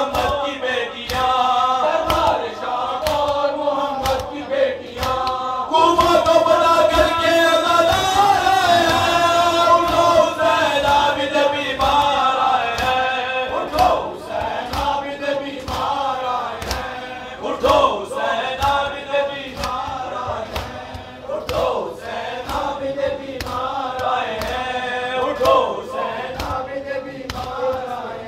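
Group of men chanting a noha, a Shia elegy, together through a microphone. A steady beat of sharp slaps runs under the chanting, typical of matam, hands striking chests in time.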